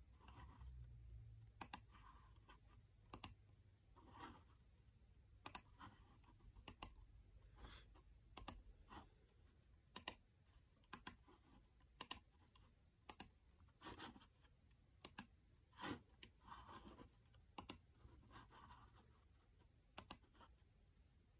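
Computer mouse clicking at irregular intervals, roughly one sharp click a second with some double clicks, and fainter rubbing sounds in between.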